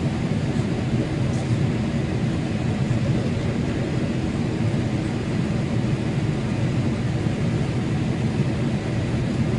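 Steady cabin noise inside a Boeing 787 airliner in flight: an even rumble of engine and airflow, strongest in the low range, with no change in pitch or level.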